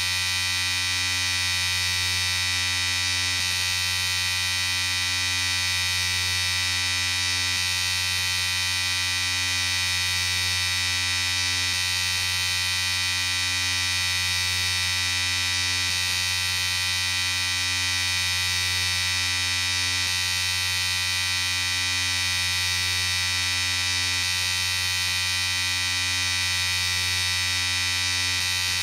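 Electric shaver running continuously with a steady, even buzz and hum.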